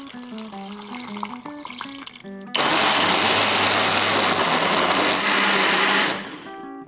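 Countertop blender switching on abruptly and running at a steady speed for about three and a half seconds, grinding onion, pear, chillies, garlic and water into a sauce. It then spins down and stops.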